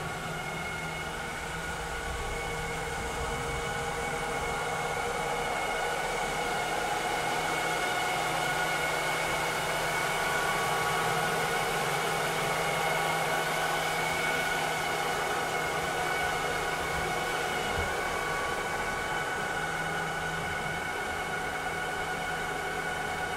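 Vileda robotic vacuum cleaner running, a steady whirring hum of its fan and brush motors with several held tones, growing a little louder in the middle and easing off again toward the end.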